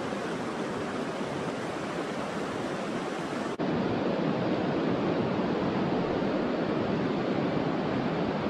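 Steady rush of fast-flowing river water, with a brief dropout about three and a half seconds in, after which it runs on slightly louder.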